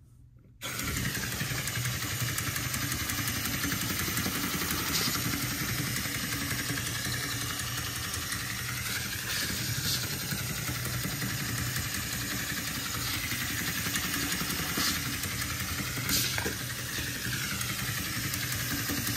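Toy robot spider's small electric motor and gears whirring steadily as it crawls, starting about half a second in, with a few sharp clicks along the way.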